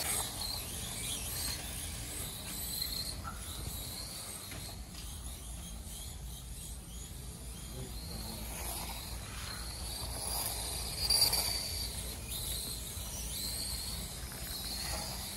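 Several 1:28-scale Mini-Z F1 radio-controlled cars racing, their small electric motors giving a thin high whine that rises and falls in pitch as they accelerate and brake, with a brief louder knock about eleven seconds in.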